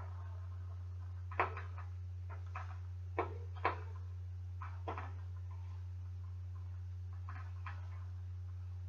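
A few short clicks and knocks of a wrench working a bicycle's hydraulic rim-brake bolt as it is snugged down, the clearest four in the first five seconds, fainter ones later, over a steady electrical hum.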